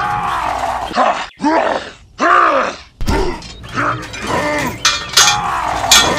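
Straining grunts and groans of a voice heaving at a heavy load: a quick series of short calls, about two a second, each rising and then falling in pitch. A brief harsh noise comes near the end.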